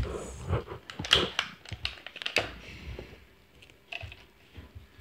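Irregular crackling and clicking of the clear plastic wrap on an L.O.L. Surprise ball as it is handled and turned by hand, with a knock right at the start. The crackling is thickest in the first three seconds and thins out after.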